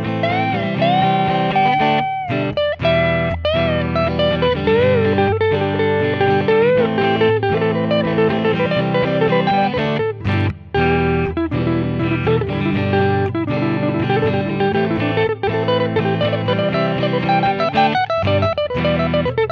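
Electric guitar (a Jackson Kelly KE2) playing a lead melody with string bends and vibrato over a steady backing accompaniment, recorded direct rather than through a miked amp.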